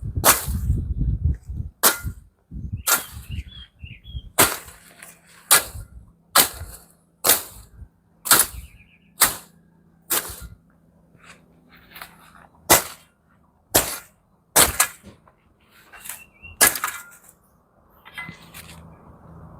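A machete (cutlass) chopping weeds and brush: about seventeen sharp blade strikes, roughly one a second.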